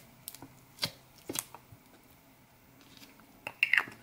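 Sticky glitter slime being handled and pressed into a small glass bottle: a few soft clicks about half a second apart, then a louder cluster of sticky clicks and a short squeak near the end.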